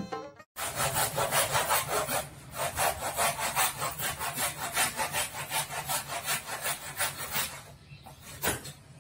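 Handsaw cutting through a large thin board in quick, regular back-and-forth strokes. The sawing starts about half a second in, pauses near the end, and a few last strokes follow.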